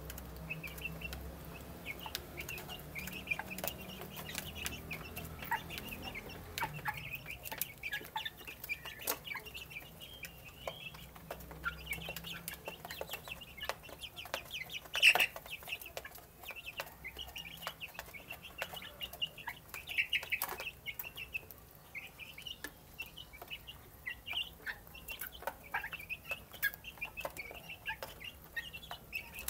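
A flock of young chickens calling constantly with short, high cheeping notes as they feed. Sharp clicks of beaks pecking at the feeder and the wooden floor run through it, with one louder knock about halfway through.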